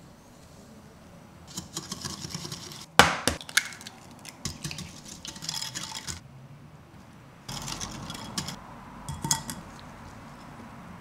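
Kitchen utensils and dishes handled while preparing cookie dough: scraping and rustling in stretches, with a sharp clink about three seconds in and a few lighter clinks later.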